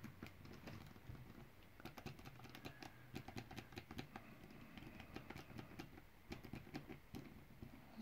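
Faint, irregular clicks and taps of fingertips pressing along the metal push buttons of a Securefast mechanical combination lock. The buttons are being felt one by one under tension on the knob, a stiffer one marking a digit of the code.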